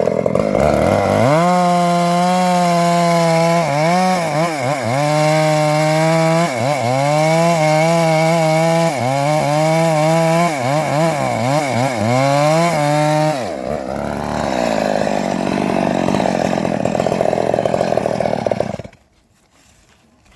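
Two-stroke chainsaw cutting acacia wood at full throttle. Its engine note sags and recovers again and again as the chain loads up in the cut. After about 13 seconds the steady note breaks into a rougher sound, and the saw stops about 19 seconds in.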